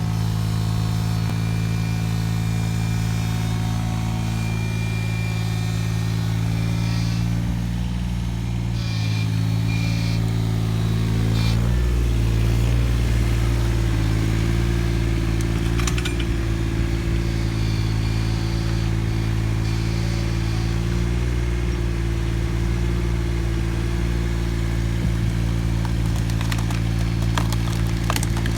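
Takeuchi TB219 mini excavator's diesel engine running steadily. About twelve seconds in, its note drops and it gets a little louder as it takes up load. A few sharp cracks come near the end.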